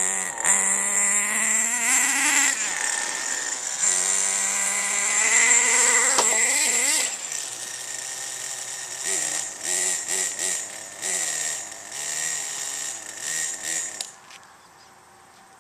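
Radio-controlled car's motor revving up and down in rising and falling whines as it drives about, loudest for the first several seconds, then in short bursts, stopping abruptly about fourteen seconds in.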